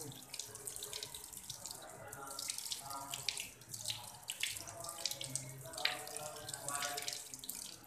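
Thin stream of water running from a tap and splashing onto a concrete floor while raw meat chunks are rinsed and rubbed by hand under it, with many small spatters and splashes.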